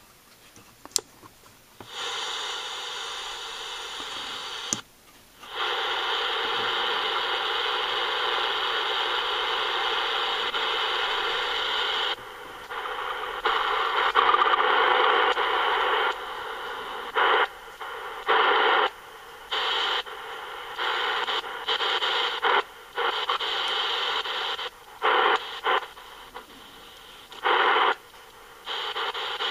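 Static hiss from the small speaker of a Vogurtime AM/FM radio kit, coming on about two seconds in. With no station coming through, the hiss breaks off and comes back again and again in the second half as the knobs are worked.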